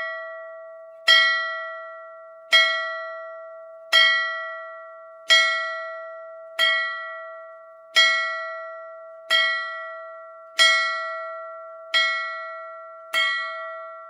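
A single bell struck repeatedly at a steady pace, about once every second and a third. Each strike is at the same pitch and rings on, fading until the next.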